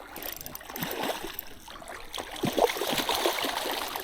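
Stream water running, with some irregular splashing.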